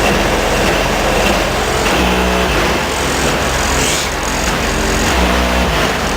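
Loud bass-heavy music played through a car's two 10-inch Clarion subwoofers, with a deep bass hit about every three seconds.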